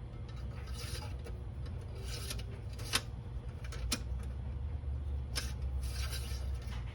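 Rubbing and scraping handling noises with a handful of short knocks, over a steady low rumble.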